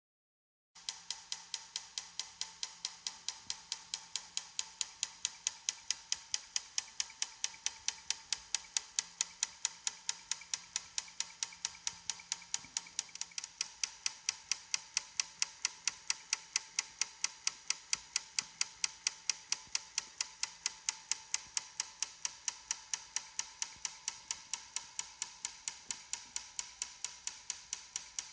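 Steady, rapid mechanical ticking, about four to five sharp clicks a second, starting abruptly about a second in and keeping an even beat.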